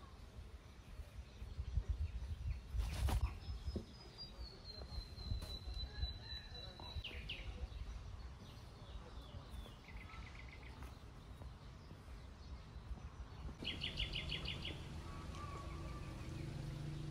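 Birds singing in the trees: a long whistled note that slides down a little, then short rapid trills, over a low rumble in the first few seconds with one sharp click. A low steady hum comes in near the end.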